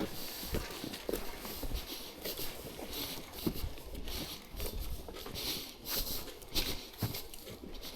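Hiker's footsteps on a trail, at a steady walking pace of roughly two steps a second.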